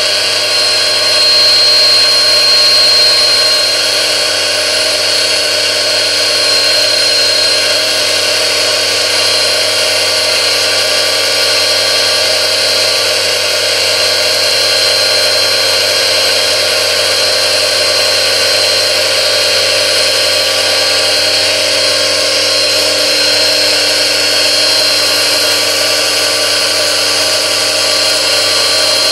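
A 3D-printed plastic gear train and its drive motor spinning at very high speed in lubricating fluid, the third gear estimated at 38,000 rpm. It makes a loud, steady, high-pitched whine like a dental drill, with the churning hiss of the fluid under it.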